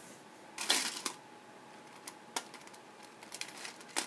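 Small plastic action-figure parts being handled: a run of light clicks and rustles, the loudest cluster about two-thirds of a second in.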